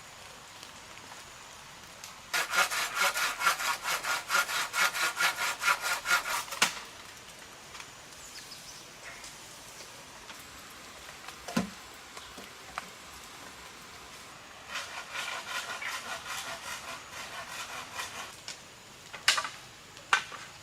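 Hand saw cutting wood in two bouts of rapid, even back-and-forth strokes, the first louder. A single knock falls between the bouts, and two sharp clicks come near the end.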